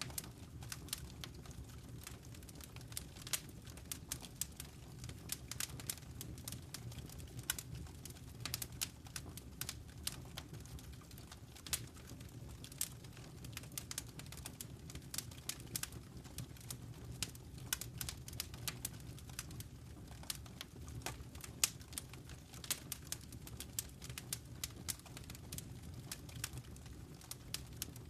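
Wood fire in a fireplace crackling, with many irregular sharp pops and snaps over a low steady rumble of the flames.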